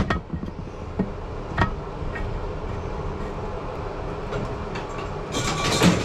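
Hammer blows on a steel upper control arm and spindle clamped in a bench vise: one strike at the start, then two more about a second and a second and a half in, over a steady low rumble. Near the end comes a loud burst of hissing noise.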